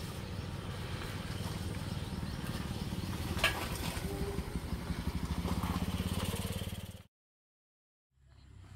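Low engine rumble with a fine, regular pulsing, growing louder toward the end, with one sharp click about three and a half seconds in. The sound cuts off abruptly near the end.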